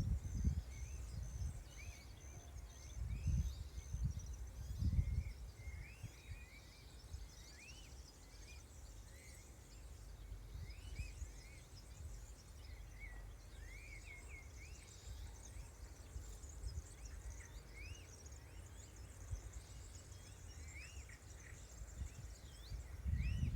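Pond-side outdoor ambience of small birds chirping again and again in short rising-and-falling calls. A high, rapidly pulsing tone runs through the first few seconds, and low rumbles rise at the start, around three to five seconds in, and near the end.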